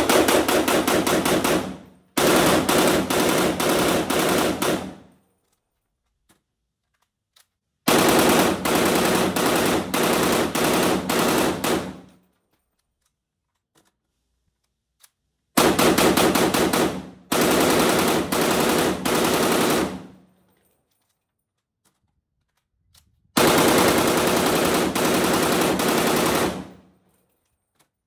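POF CW39 rifle firing long full-auto bursts, six strings of a few seconds each in four volleys, with pauses of three to four seconds between volleys. A few faint clicks fall in the pauses.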